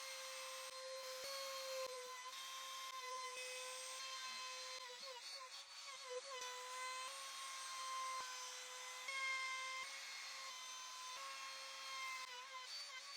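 Electric router running at high speed with a 30 mm bit, rounding over the edges of pine boards: a steady whine whose pitch dips briefly now and then as the bit bites into the wood.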